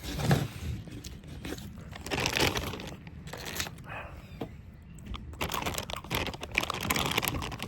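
Close-miked crunching and crinkling of plastic food packaging being handled, becoming dense and continuous from about five seconds in.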